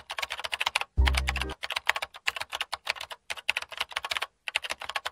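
Computer keyboard typing sound effect: a rapid, uneven run of key clicks, with a short deep bass hit about a second in.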